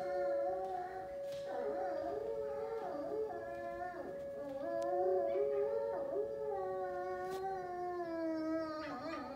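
High-content wolf dog howling in long, wavering notes, over the steady tone of an outdoor warning siren under test.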